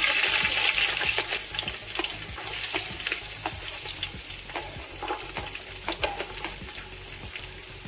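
Sliced green chillies, then chopped ginger and garlic, sizzling in hot oil, with scattered pops and crackles. The sizzle is loudest at first and slowly dies down.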